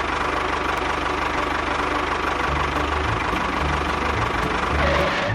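Small motor running steadily, starting abruptly and holding an even, noisy drone with a faint steady whine.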